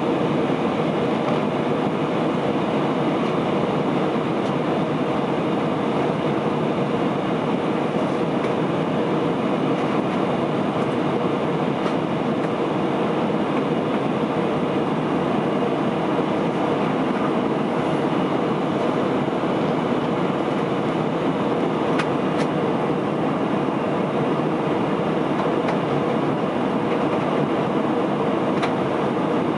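Steady cabin noise inside an Airbus A319 airliner in flight: the constant rush of the engines and airflow with a steady hum, and a couple of faint clicks near the end.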